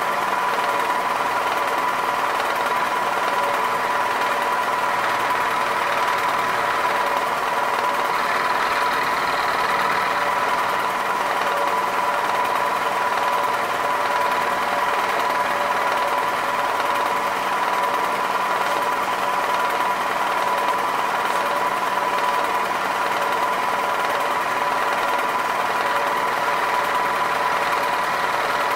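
Milling machine spindle running with an end mill cutting pockets in a metal part. The sound is a steady whine with one strong, even tone.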